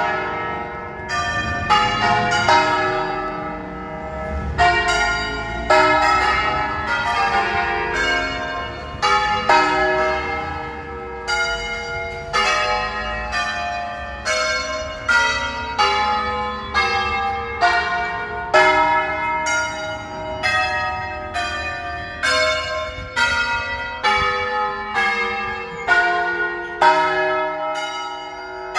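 The nine largest bells of a thirteen-bell church ring in E-flat, rung in Veronese concert style, striking one after another about once a second, each stroke's tones ringing on under the next.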